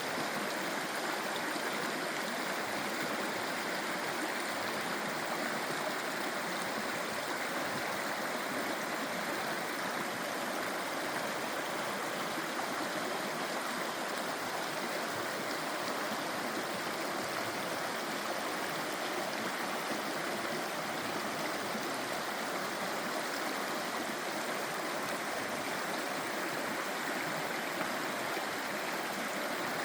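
A stream running over rocks: a steady rush of water with a gurgle.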